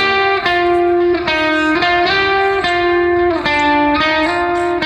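Background music led by a plucked guitar, playing a run of notes that change about every half second.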